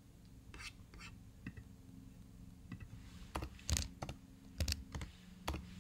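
A few separate keystrokes on a computer keyboard, irregularly spaced and most of them in the second half, as a six-digit verification code is typed in.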